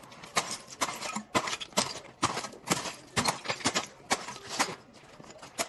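Shovel and hoe blades striking and scraping loose brick-and-stone rubble: a string of sharp, irregular hits, roughly two a second.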